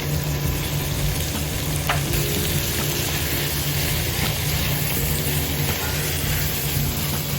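Food frying in a pot, sizzling steadily, with a low hum underneath.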